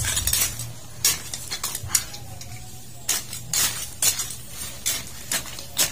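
Irregular light clinks and knocks of small hard objects, about ten in a few seconds.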